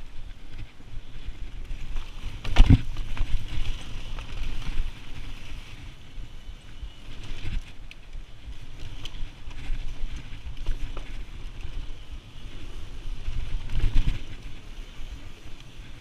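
Low, steady rumble of wind and movement with scattered knocks, the strongest about two and a half seconds in and another near the end.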